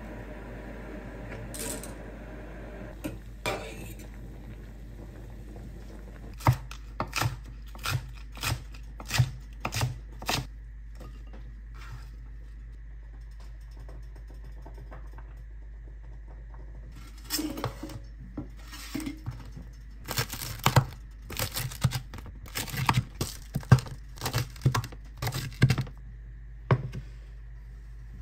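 Dishes and kitchen utensils clinking and knocking during home cooking, over a steady low hum. There are two spells of sharp clicks and clatter: a short one about six to ten seconds in, and a longer, busier one from about seventeen seconds until shortly before the end.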